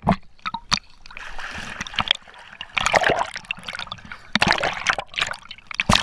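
Pool water splashing and sloshing against a GoPro camera held at the surface, dipping in and out of the water, with several sharp splashes.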